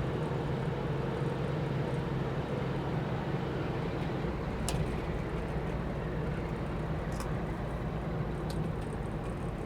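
A 1963 Chevrolet Corvair driving along, its rear-mounted air-cooled flat-six running steadily under road noise, with a few faint clicks.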